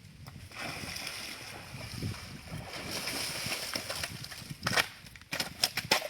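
Water sloshing and splashing around a small boat, with a quick run of sharp knocks near the end.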